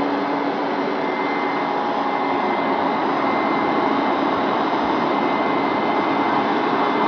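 Hoover Max Extract carpet cleaner running steadily: an even suction noise with a constant motor whine.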